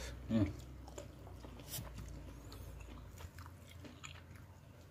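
A person chewing a mouthful of fried chicken and sambal, with faint wet clicks and smacks of the mouth.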